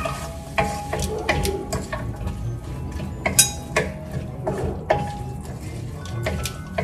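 Wooden spatula stirring diced pork and onions in a stainless steel frying pan, knocking and scraping against the metal with irregular clacks, a few of them ringing briefly.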